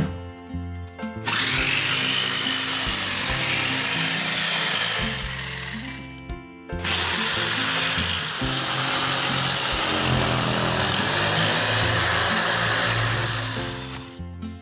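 Electric jigsaw cutting through plywood in two long, steady runs, the first about five seconds and the second about seven, with a brief stop between them.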